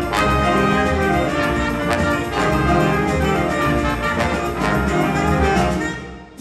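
Jazz big band playing a full, brass-heavy passage: saxophones, trumpets and trombones over piano and upright bass, with sharp accents. The band stops about six seconds in, ending the number.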